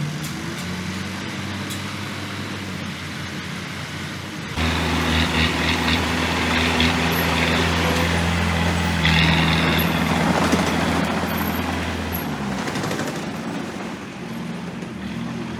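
Heavy diesel engine of a construction machine (dump truck or bulldozer) running steadily. About four and a half seconds in it revs up sharply under load and holds there for several seconds, then drops back to a lower running speed near the end.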